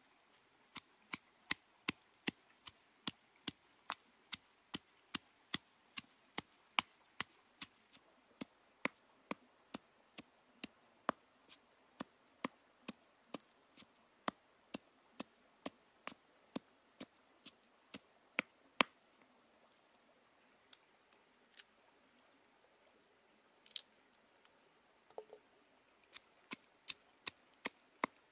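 Pestle pounding red chilies in a stone mortar: sharp, even knocks about two a second. The pounding pauses for several seconds about two-thirds of the way through, with only a few scattered knocks, then starts again near the end.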